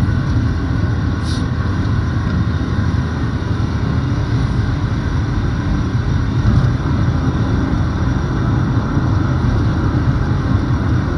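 Steady engine and road noise inside a moving car's cabin, an even rumble with no change in speed, with a brief high click about a second in.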